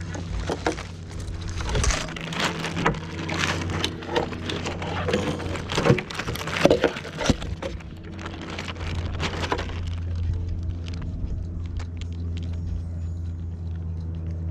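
Hands handling a model sailboat's rigging and sail next to the deck: quick clicks, taps and rustles over a steady low hum. The handling noise is thickest in the first ten seconds, with the sharpest clicks a little past the middle, then dies down and leaves mostly the hum.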